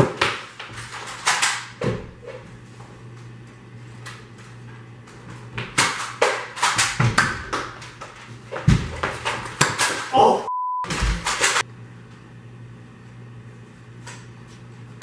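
Irregular knocks and thumps of a Nerf battle indoors: blasters firing and foam darts and bodies hitting doors and walls, in scattered clusters. About ten and a half seconds in, a short censor bleep.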